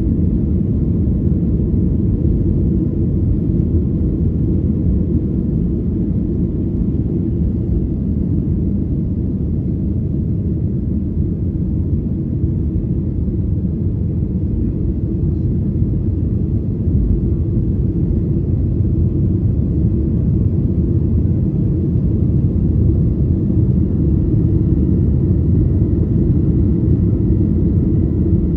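Steady low rumble of a passenger airliner heard from inside the cabin, growing slightly louder a little past halfway.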